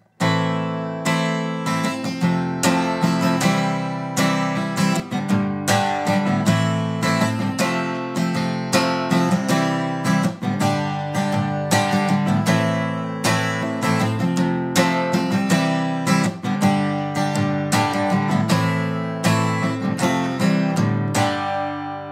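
Steel-string acoustic guitar strummed in a steady, busy rhythm of chords, with several strokes a second. Near the end the playing stops and the last chord is left ringing.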